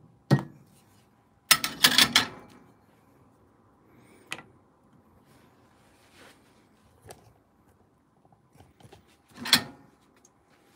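Espresso gear being handled on the counter: a cluster of sharp metal knocks and clatter about two seconds in, then scattered clicks and a short clunk near the end.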